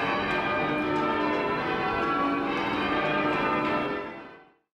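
Lincoln Cathedral's church bells being rung in changes, many bells striking one after another in overlapping rounds. The ringing fades out about four seconds in.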